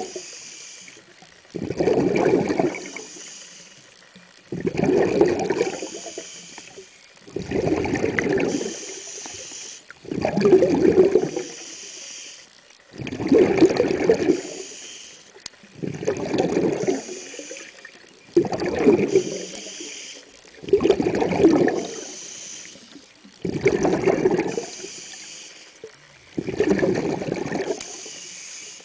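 Scuba diver breathing through a regulator underwater: a burst of bubbling exhaust bubbles about every two and a half to three seconds, eleven in all, with a fainter hiss between them.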